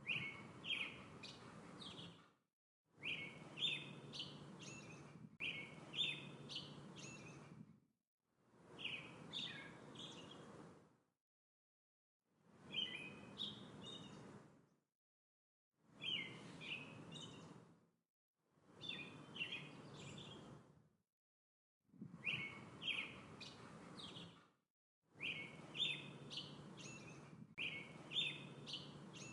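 Small songbirds chirping and twittering over a faint outdoor background. It comes in chunks a few seconds long, each broken off by a moment of dead silence before the next begins.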